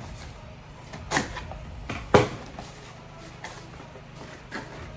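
A few sharp knocks and clicks as fragrance bottles and their packaging are handled, the loudest about two seconds in, over a steady low hum.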